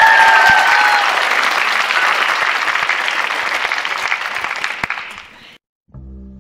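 Audience applauding a dance performance, with one long high cheer over it at the start. The applause fades out about five seconds in.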